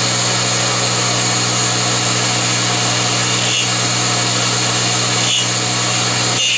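Taig CR19 CNC milling machine running a program: the spindle motor runs steadily while the end mill cuts a wooden block, a constant motor hum with a hissing cutting noise over it.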